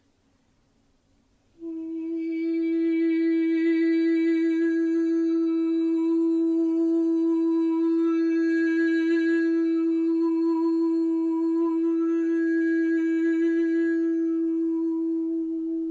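A woman's voice sounding one long, steady sung tone, starting about two seconds in. The vowel is slowly reshaped so that different overtones ring out above the held note: sound-healing toning.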